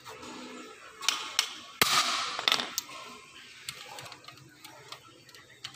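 Hammer striking a hand impact driver to break loose a screw in a car alternator's housing: two sharp metal strikes about a second in, then a louder one with about a second of rattling after it, and a few lighter clicks later.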